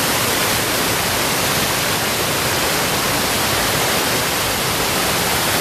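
A small stream rushing over a drop like a little waterfall: a loud, steady rush of water.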